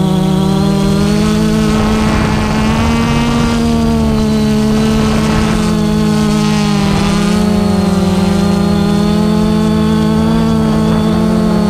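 Quadcopter drone's motors and propellers whining steadily as it hovers, a stack of steady tones that wavers slightly in pitch. Gusts of wind noise rush over it about two seconds in and again just past the middle.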